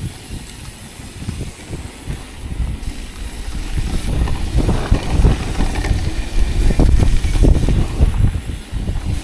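Mountain bike riding down a dirt trail: tyre rumble with uneven knocks and rattles from the bike over bumps, louder from about four seconds in.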